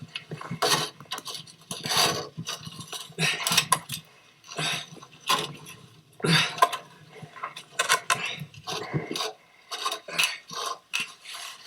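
Irregular scraping and knocking of ice being chipped and broken up inside a frozen septic tank, a stroke every half-second to a second.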